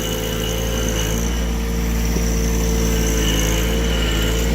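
John Deere 1-series sub-compact tractor's three-cylinder diesel engine running steadily at working revs. About a second in its note drops slightly and gets a little louder.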